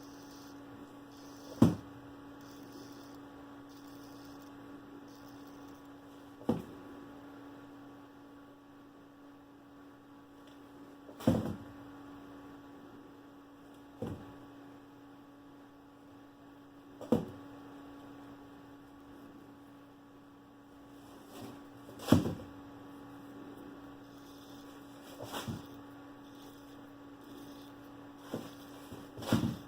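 Steady electrical hum, broken every few seconds by about nine short, sharp knocks or taps, irregularly spaced.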